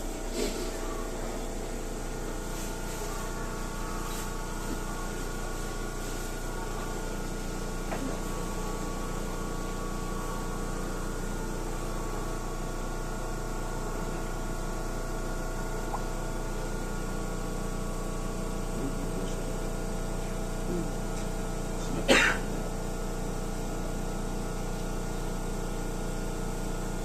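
Tobu 30000 series train car standing still, with the steady hum of its onboard equipment and air conditioning at unchanging pitch and no running noise. A single short, sharp sound comes about 22 seconds in.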